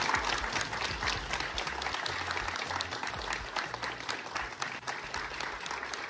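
A small group of people applauding, steady clapping that eases off a little toward the end.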